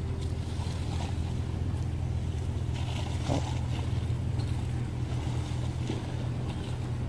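A steady low engine-like hum, unbroken throughout, with a light rush of wind and sea noise over it.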